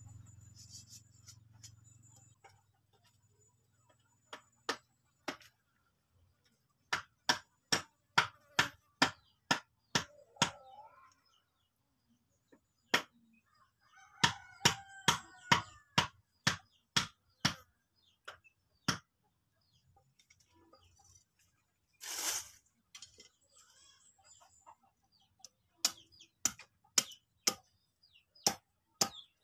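Sharp chopping blows of a machete on wood, in runs of about two to three strikes a second with pauses between, and birds calling faintly in the background.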